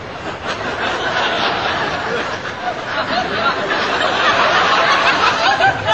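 Studio audience laughing, swelling to its loudest about five seconds in and dropping away just before the end.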